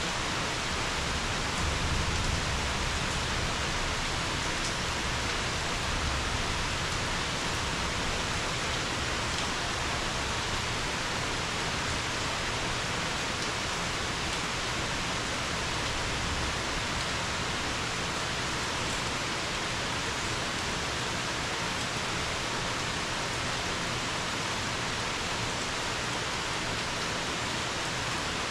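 Steady summer rain pouring on leafy forest, a constant even hiss. A faint low rumble swells twice in the first several seconds.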